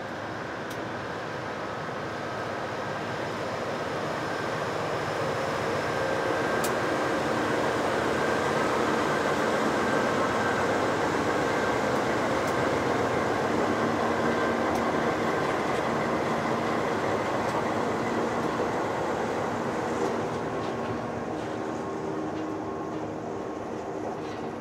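Diesel-electric freight locomotives of a loaded acid train running past, their engines and steady tones swelling as they go by. After them the tank wagons roll past with wheel-on-rail noise, which eases off toward the end.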